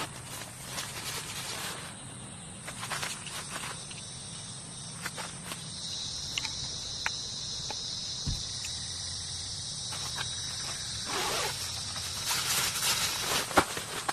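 Insects droning steadily in a high, even buzz that swells in the middle and fades near the end, with scattered clicks and rustles of handling or footsteps over it.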